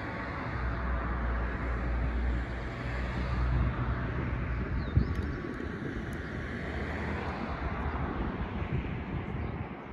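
Outdoor ambient rumble and hiss, heaviest in the first few seconds, with a single sharp click about five seconds in.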